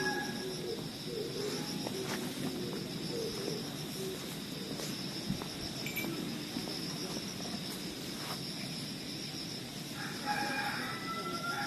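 A rooster crows once near the end, a single drawn-out call, over a steady high-pitched drone and low rough background noise.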